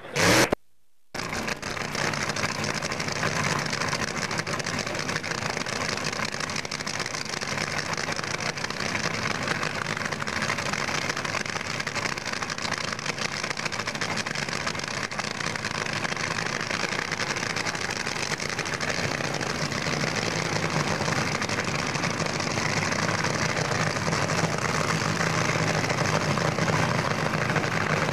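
Race-car engines idling in the staging lanes, a steady engine noise under a lot of hiss, after a brief dropout about a second in.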